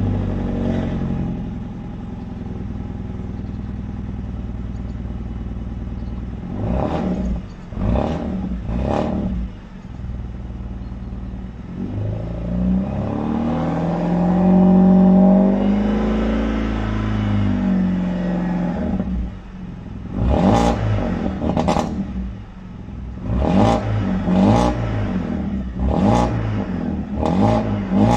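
BMW E91 320i's four-cylinder petrol engine, exhaust with the resonator deleted, idling and being revved: three quick blips, then one long rev that rises and falls, then a run of about eight sharp blips near the end. A little rattle comes from the exhaust, which the owner puts down to metal plates come loose inside the muffler.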